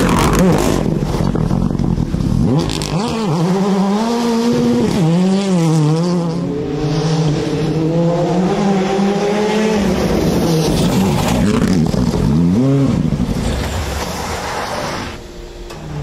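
Rally car engines at full throttle. The revs climb and drop sharply several times with gear changes and lifts as the cars pass, so the pitch sweeps up and down repeatedly.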